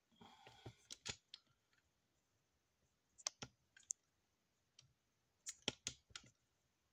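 Scattered sharp clicks from a computer mouse operating the page, in small groups: two about a second in, three around three and a half seconds in, and four between five and a half and six seconds in, over near silence.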